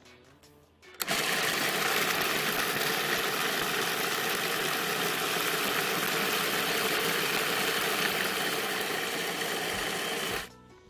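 Food processor motor running steadily, its blade grinding a crust mix of raw almonds and dates. It starts about a second in and stops shortly before the end.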